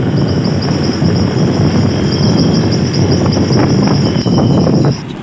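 Steady loud rush of a waterfall, heaviest in the low range, with a high, evenly pulsing insect trill above it. Both cut off abruptly near the end.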